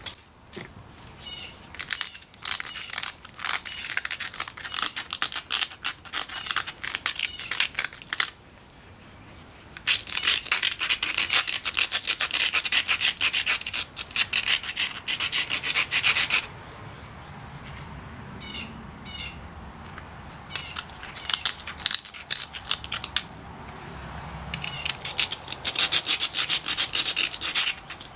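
Edge of a Texas tab chert preform being rubbed with an abrader in rapid scraping strokes. The strokes come in several bursts of a few seconds each, with short pauses between. This is edge abrading, which dulls and strengthens the edge for pressure flaking.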